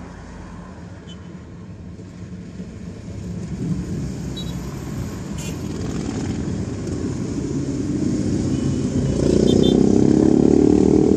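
A column of motorcycles passing on a road, with a van and a car going by among them. The engine noise builds steadily and is loudest near the end, as motorcycles go by close.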